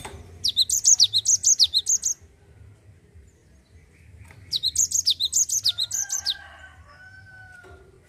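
Cinereous tit singing its rolling song: two quick runs of high, sweeping notes, each about one and a half to two seconds long, with a pause of about two and a half seconds between them.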